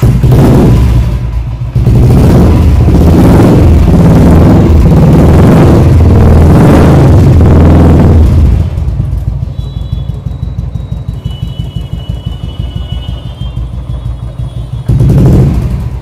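Royal Enfield Thunderbird bobber's single-cylinder engine being revved in repeated throttle blips for about eight seconds, then settling to an idle with even beats. One more rev comes near the end.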